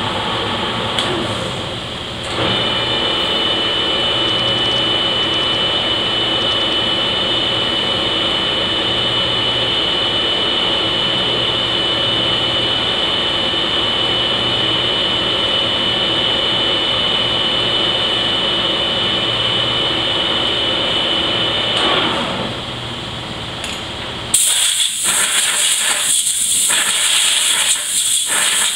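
Harrison lathe running with a steady high whine while a hole is tapped in the chucked part. Near the end, a compressed-air blow gun hisses loudly in several short blasts to clear chips.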